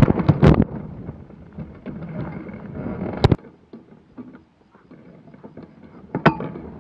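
A hang glider crashing into long wet grass: wind on the microphone and a quick run of sharp knocks as the control bar and glider hit the grass in the first half second, then a rustle that dies away. An abrupt click about three seconds in, then quiet wind with small knocks and one sharper knock near the end.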